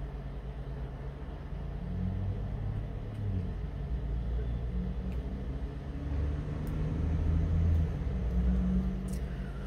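A low rumble that swells over several seconds and then eases, over a steady low hum.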